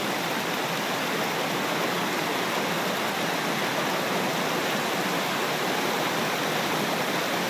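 Shallow creek water running over a rocky bed: a steady, even rush.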